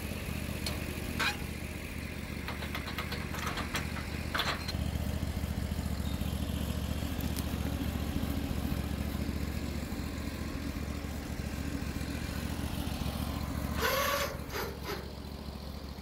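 Hudson Oscar 336 portable bandsaw mill's engine running steadily, a little louder from about five seconds in, with a few short knocks early on and a brief scraping clatter near the end.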